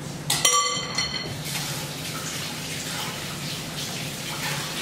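A short ringing clink, then a kitchen tap running steadily for about three seconds.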